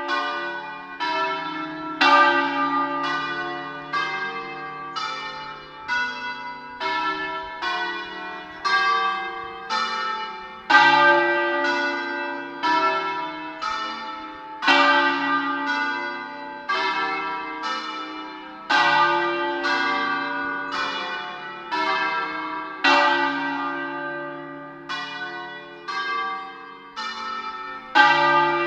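A peal of several church bells rung from a stone bell tower. Strokes of different pitches follow one another about every half second to second, each ringing on under the next, with a louder stroke coming round about every four seconds.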